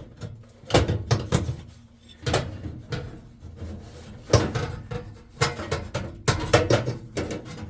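Irregular clanks, clicks and scrapes of sheet-metal parts in a gas oven's burner area being handled and worked loose by hand.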